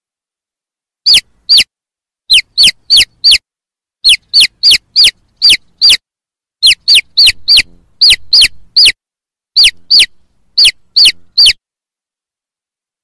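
Chicks peeping loudly: about two dozen short, high peeps, each falling in pitch, in quick runs with brief pauses between. They stop a little before the end.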